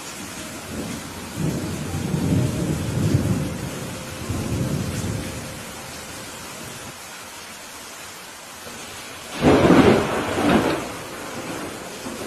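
Steady rain hissing, with a low rolling rumble of thunder for the first few seconds, then a loud, sudden thunderclap about nine seconds in that cracks again a second later.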